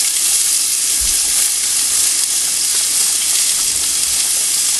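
Diced onions sizzling steadily as they fry in hot olive oil in a frying pan.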